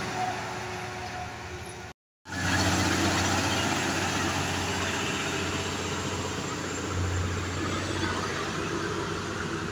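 Heavy diesel trucks passing close by, a dump truck and then a lowboy tractor-trailer hauling an excavator, engines running with tyre noise. The sound cuts out for a moment about two seconds in, then continues steadily, swelling again around seven seconds in.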